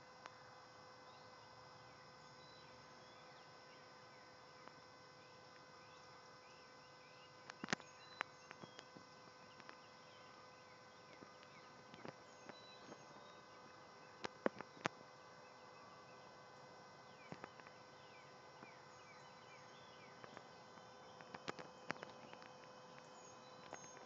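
Faint insect chirping over a steady thin hum, broken by scattered sharp clicks.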